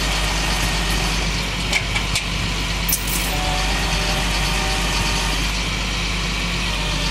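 Tow truck engine idling steadily, with a few short metallic clinks about two to three seconds in.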